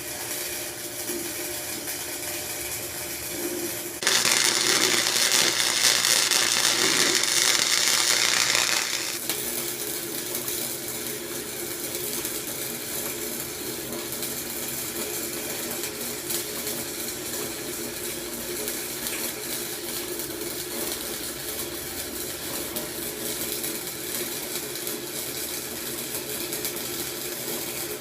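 A flux-core wire welder's arc crackling and hissing in one burst of about five seconds, starting about four seconds in, over a steady low hum.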